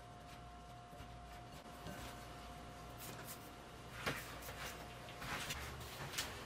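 Fingers rubbing and pinching cold butter cubes into flour in a glass bowl: soft, faint rustling and crumbling, with several sharper clicks and scrapes from about three seconds in.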